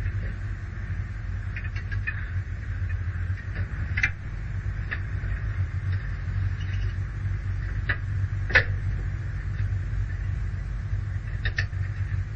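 Steady low rumble, with several sharp metallic clanks as the hood of an M939A2 5-ton cargo truck is raised and its retaining bar secured. The loudest clank comes about eight and a half seconds in.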